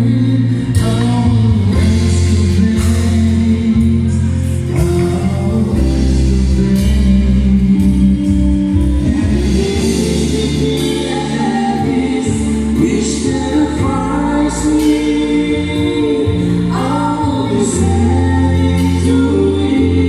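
Mixed vocal group singing a song through microphones and the hall's speakers, the voices layered over steady low bass notes that change every second or two.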